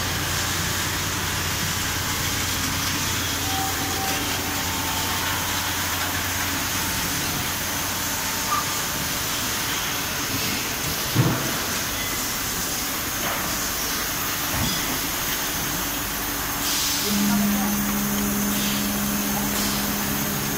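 Factory machine noise from an automatic filter assembly line: a steady hiss with a low hum underneath. Two short clunks come near the middle, and a steady machine hum starts about three quarters of the way through.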